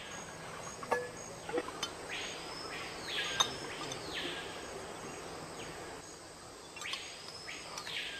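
Rainforest ambience: buzzy wildlife calls that swell up and fall away, each about a second long, come in two pairs a few seconds apart over a steady background of insects. A few light clicks sound in the first few seconds.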